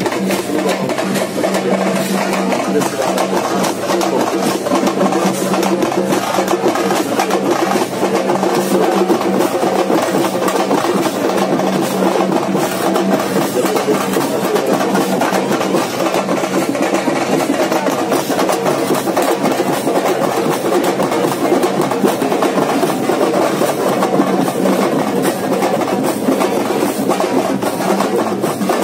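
Loud percussion music: dense, rapid drumming played steadily without a break.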